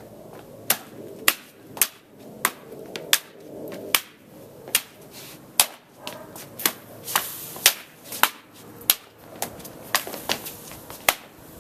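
Sharp slaps or cracks, repeated about every half second and quickening slightly near the end, during solo kendo practice with a wooden sword.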